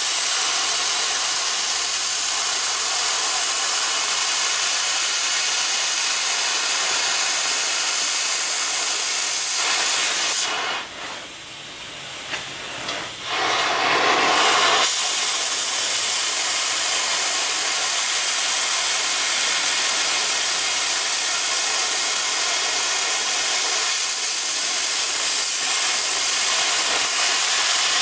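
Oxy-fuel cutting torch on a circle-cutter attachment hissing steadily as it cuts through steel plate. About ten seconds in the hiss drops away for roughly four seconds, then comes back at full strength.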